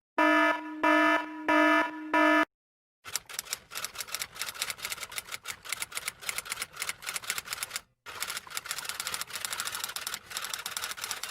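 A short run of about four electronic beeps, then a fast, continuous clatter of typing clicks that lasts about eight seconds, broken once briefly.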